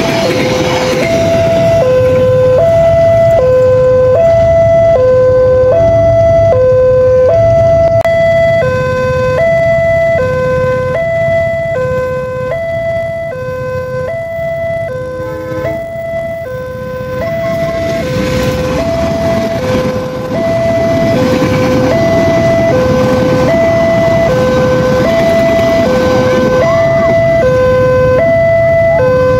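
Railway level-crossing warning alarm sounding a steady two-tone signal, a high and a low tone alternating about once every second and a half, which means a train is approaching or passing. Under it is the rumble of a passing train, which dips in the middle and comes back louder in the last third.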